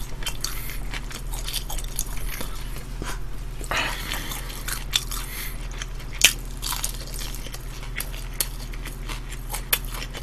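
Close-miked biting and chewing of crispy fried chicken: irregular crunches and crackles, the sharpest about six seconds in, with a steady low hum underneath.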